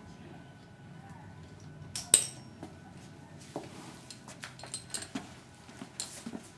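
Metal lead-rope snap clinking against a horse's halter hardware as it is unclipped, with one sharp click about two seconds in. Lighter clicks, clinks and footsteps on the barn floor follow.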